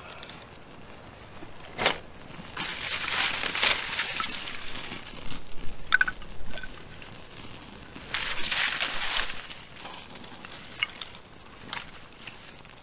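Dry twigs and tinder crackling and rustling as a small fire is lit and fed, with a sharp snap about two seconds in and two longer stretches of dense crackling.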